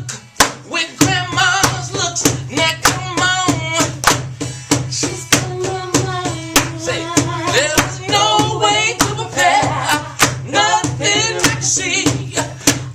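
Live soul/R&B band playing: a male lead voice sings with vibrato over guitar, a steady low bass line and an even drum beat.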